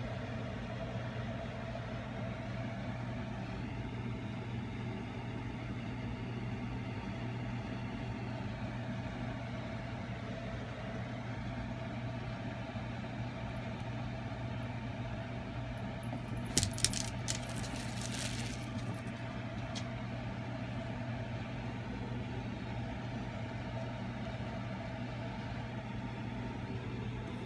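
A steady low mechanical hum with a fainter higher tone. About two-thirds of the way through, a brief clatter of small hard clicks.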